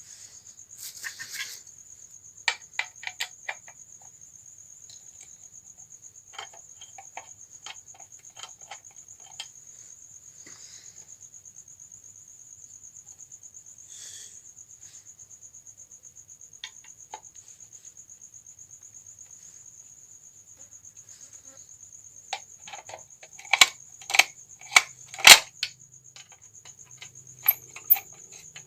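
Small sharp metal clicks and taps as nuts are fitted and tightened on an electric iron's handle, in scattered groups, with the loudest cluster late on. Under it a steady high-pitched cricket trill.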